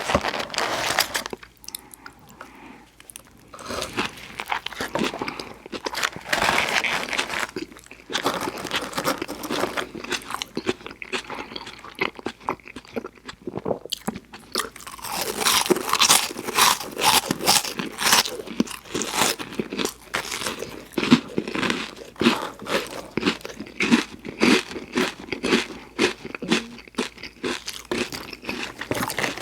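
Close-up mouth sounds of a person biting and chewing crunchy food: irregular crunches in quick succession, sparser for a moment a few seconds in and again near the middle, then steady and dense through the second half.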